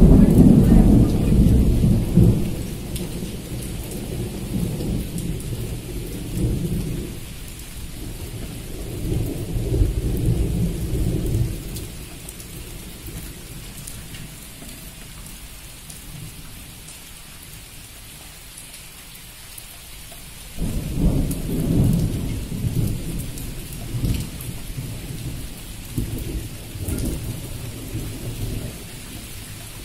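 Thunder rolling over steady rain. A long rumbling peal fills the first dozen seconds, swelling again near ten seconds before fading. After a lull of rain alone, a second peal breaks in suddenly a little past twenty seconds and rolls on, dying away near the end.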